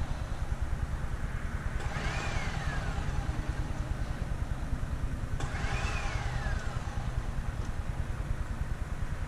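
Backhoe's diesel engine running steadily, with a whine that rises and then falls away, repeating twice about three and a half seconds apart.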